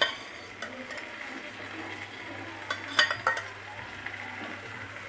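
Boiled eggs and potatoes sizzling in masala in a nonstick frying pan while a silicone spatula stirs them. The spatula knocks against the pan a few times, sharpest about three seconds in.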